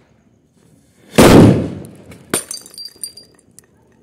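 A large firecracker ('heavy bomb') explodes with one very loud bang about a second in. About a second later comes a sharp crack and a second of high tinkling: a glass bottle set about 5 m away shatters from the blast and its pieces fall.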